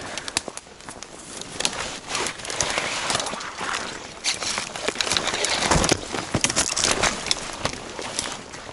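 Footsteps pushing through dry undergrowth: irregular rustling and crackling of leaves and twigs, with many sharp snaps.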